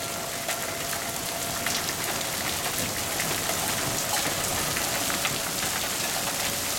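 Pea-size hail and rain falling hard, many small sharp hits in a dense patter. Under it an outdoor tornado warning siren sounds its steady wail, faint at first and swelling again near the end.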